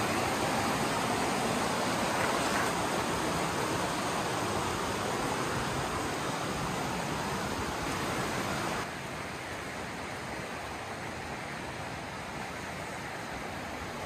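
Mountain river rushing over rocks and small rapids: a steady wash of water noise that drops suddenly in level about nine seconds in and then carries on steadily.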